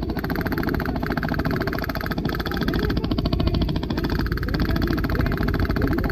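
Airsoft guns firing on full auto: a fast, even mechanical rattle in long bursts, broken briefly by short pauses about half a second, two seconds and four seconds in.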